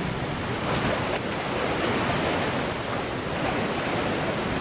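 Rough sea surf breaking over rocks and washing back: a steady, unbroken rush of waves.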